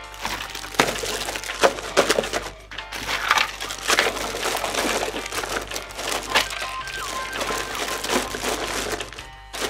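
Small parts in plastic bags and a cardboard box being handled and rummaged through: an irregular run of crinkling, rustling and light knocks. Faint background music plays underneath.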